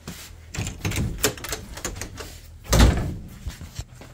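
Scattered clicks and knocks of handling, with one heavier thump just under three seconds in.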